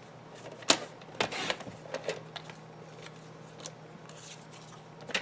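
Paper trimmer cutting a strip of cardstock: a sharp click as the blade carriage is pressed down, then a short swish as it slides through the paper. Light taps and rustles follow as the paper is moved.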